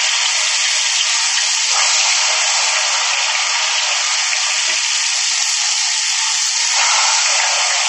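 Ghevar batter frying in smoking-hot desi ghee in a deep steel pan: a loud, steady, dense sizzle and crackle as the batter foams up. The ghee is kept very hot so the batter puffs and forms its lattice.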